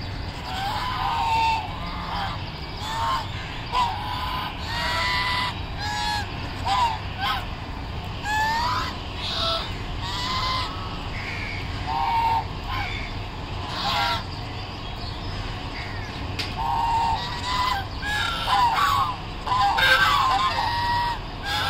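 A flock of domestic geese of the brown swan-goose type honking: short calls from several birds, scattered throughout, some rising and some falling in pitch, coming thicker and louder near the end, over a steady low rumble.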